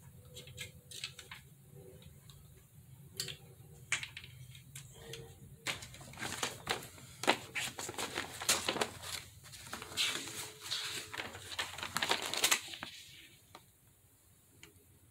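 Irregular hard plastic clicks, knocks and rattles as the five-leg plastic caster base of a rollabout hair-dryer stand is handled, its legs pushed into place and the stand's pole fitted into the hub. The knocks come thickest in the middle and die away near the end.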